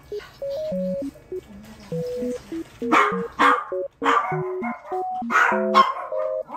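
A small dog barking, a run of about half a dozen sharp barks starting about halfway through, over a light, bouncy background tune.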